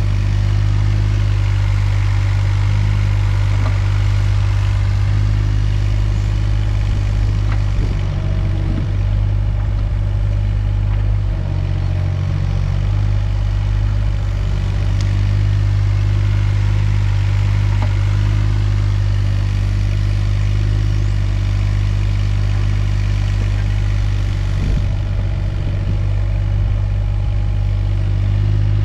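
Takeuchi TB216 mini excavator's diesel engine running steadily under work, with a few knocks from the machine as it digs.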